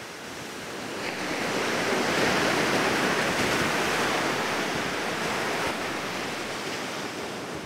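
A soft rushing noise with no tone in it swells over the first two seconds or so, holds, then slowly fades away.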